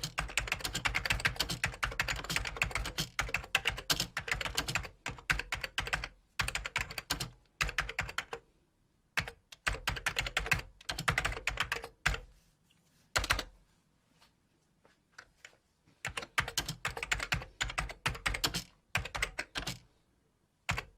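Typing on a computer keyboard: rapid runs of key clicks, broken by pauses, with a longer lull in the middle before a new burst of typing.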